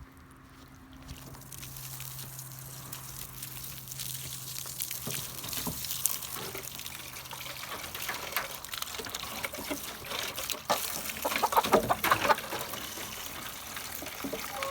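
Water running, with chickens clucking now and then and a short burst of louder sounds about eleven seconds in.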